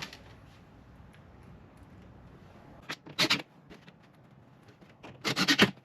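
Handling noise while fastening a cabinet bracket: brief rattles and clicks of screws and parts, twice, about three seconds in and again near the end, over a faint low background.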